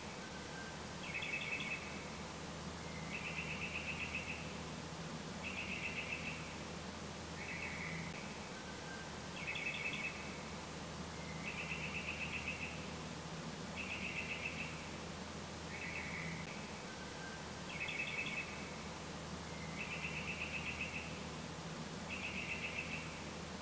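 Short trilled chirps, one about every two seconds, running in a repeating cycle of four slightly different phrases, over a low steady hum.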